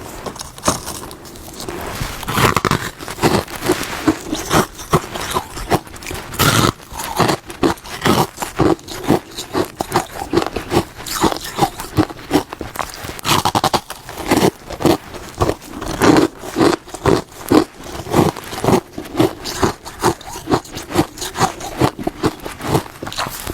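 Hard freezer frost being bitten and chewed close to the microphone: a steady run of crisp crunches, a few to each second.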